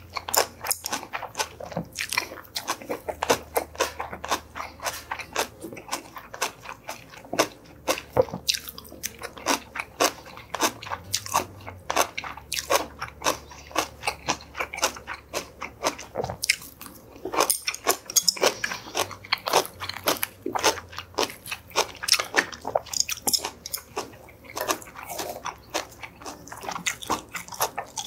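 A man chewing a mouthful of Korean home-style side dishes close to the microphone, a dense run of sharp chewing clicks several times a second.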